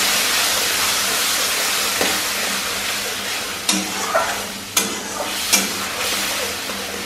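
Tomato purée sizzling in hot oil and ghee in a metal kadhai while a spatula stirs it. The sizzle slowly dies down, and the spatula clicks sharply against the pan three times in the second half.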